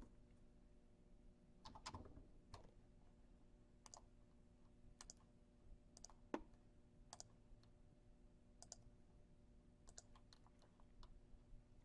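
Faint, irregularly spaced clicks of a computer keyboard and mouse: a few keystrokes and mouse button presses.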